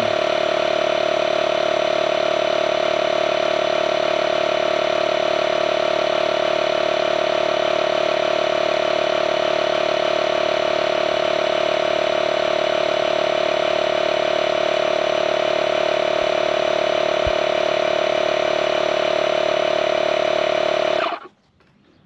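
DeWalt 20V cordless tire inflator's compressor running with a steady hum as it pumps a tire up to a preset 14 psi, then shutting itself off abruptly about a second before the end once that pressure is reached.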